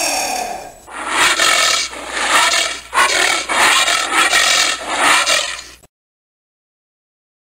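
Giant anteater calling. It gives a strained call with an arching pitch that fades in the first second, then a run of about four or five rough, rasping calls. The calls cut off suddenly about six seconds in.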